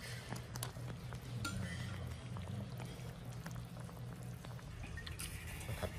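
Hot pot broth bubbling, with liquid sloshing and small clicks as a ladle stirs and lifts pieces out of the pot. A steady low hum runs underneath.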